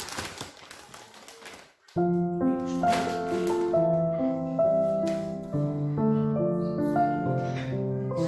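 Background piano music with a gentle melody that starts abruptly about two seconds in, after a fading hiss.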